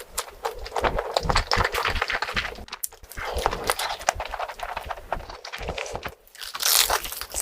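Close-miked eating: rapid, irregular crunching and chewing of food, with a louder, hissier stretch near the end.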